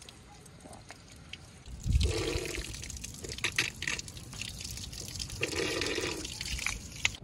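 Spring water running from a spout into a stone basin, trickling and splashing; it gets clearly louder about two seconds in.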